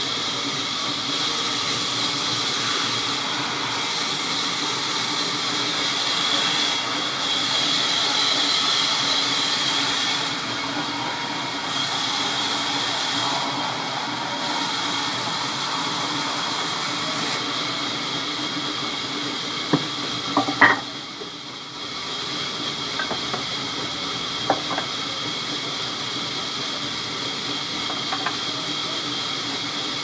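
Sawmill band saw cutting through a red mahogany slab: a steady, high whining hiss of the blade in the wood. About two-thirds through, the noise dips briefly, with a few sharp knocks of timber.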